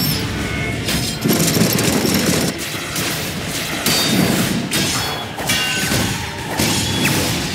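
Anime trailer soundtrack: music under a series of heavy booming hits, roughly one every second.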